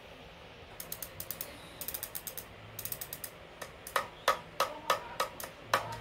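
Six-speed bicycle freewheel's pawls clicking as the sprocket cluster is turned by hand: quick runs of ticks at first, then slower, louder single clicks over the last couple of seconds.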